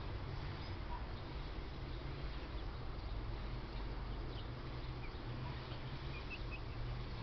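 Outdoor ambience: a steady low rumble with a few faint, brief bird chirps, one about four and a half seconds in and a small cluster near the end.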